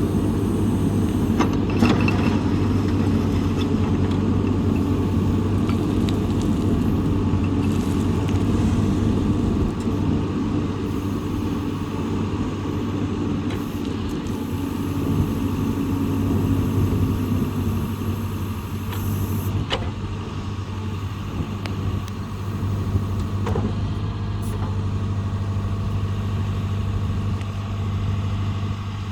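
John Deere 410K backhoe loader's diesel engine running steadily, its note easing lower about halfway through. A few light clicks and knocks come over it.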